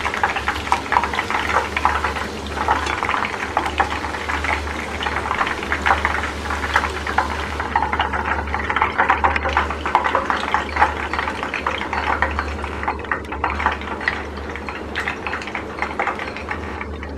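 Hot oil sizzling and crackling around batter-coated chicken strips deep-frying in a pan, a steady dense crackle that thins a little about halfway through as the chicken is lifted out in a wire spider strainer. The frothing oil is dying down, the sign that the pieces are nearly done. A steady low hum runs underneath.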